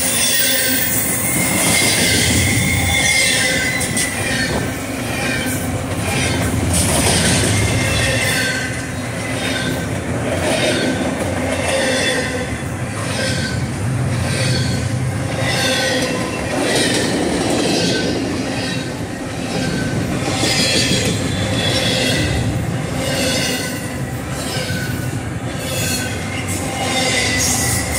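Double-stack intermodal freight train of BNSF container well cars rolling past at close range: a steady rumble of wheels on rail with a rhythmic clack of the wheels about once a second and a thin, steady wheel squeal.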